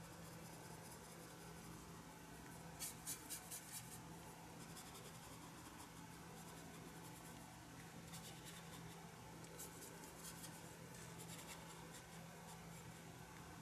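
Faint scratchy strokes of a watercolour brush dabbing on watercolour paper, coming in short flurries of quick ticks, the clearest about three seconds in, over a faint steady low hum.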